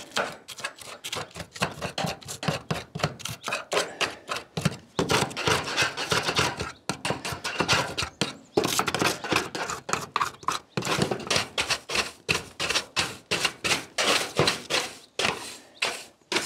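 A steel screwdriver blade scraping and gouging along the seam between two corrugated metal roof sheets, in quick repeated scratchy strokes, several a second, clearing out moss and old foam from the leaking joint.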